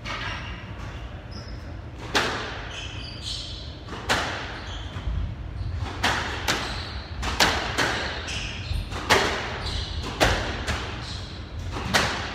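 Squash rally: the ball cracks off rackets, the front wall and the floor in sharp knocks every half-second to a second, echoing in the hall. Short high squeaks of court shoes on the wooden floor come between the hits. The knocks begin about two seconds in.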